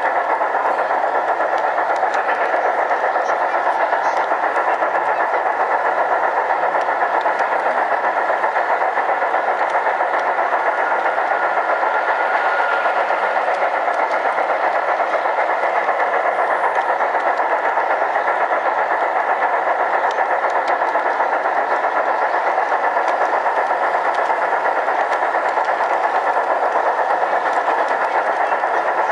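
LGB garden-scale model train running along its track, heard from on board: a steady whir of its small electric motor and gears with the wheels rolling on the rails. Crowd chatter runs under it.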